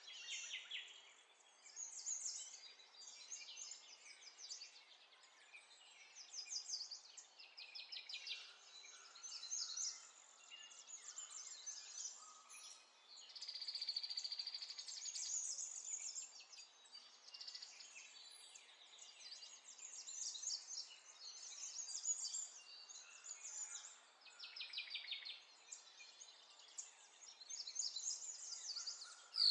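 Small birds chirping and singing in short, rapid trills, one call after another.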